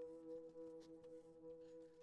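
Quiet background music: a soft, steady drone of two held tones, with a few faint clicks.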